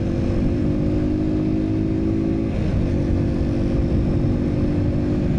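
Motorcycle engine running at steady cruising speed, its note dipping slightly about halfway through and then holding, with heavy wind rumble buffeting the microphone.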